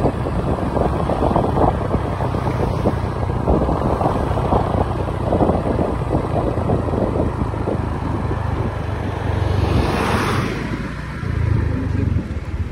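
Road noise of a moving vehicle: a steady low rumble with wind buffeting the microphone. A hiss swells and fades about ten seconds in.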